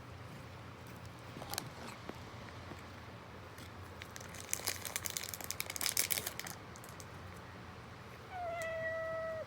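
Crinkling of a treat packet for a couple of seconds, then a cat meows once, a long call on an almost steady pitch that dips slightly at its start.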